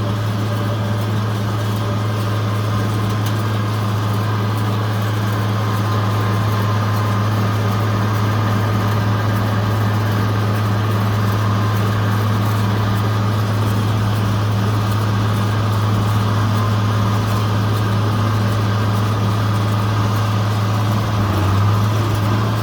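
Tractor engine running at steady speed while pulling a hay baler, a steady low drone with a fainter steady whine above it.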